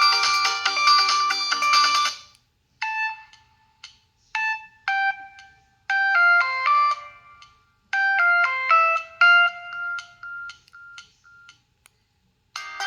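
Samsung T249 phone's preloaded ringtones playing one after another. A dense, busy tune cuts off about two seconds in. After a short pause, a sparser melody of bright separate notes plays in short phrases and ends in a repeated note that fades away. Another busy tune starts right at the end.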